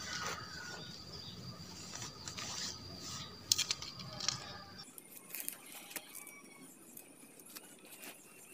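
Tent poles and nylon tent fabric being handled while a dome tent's front frame pole is fitted: scattered light clicks and scrapes with rustling.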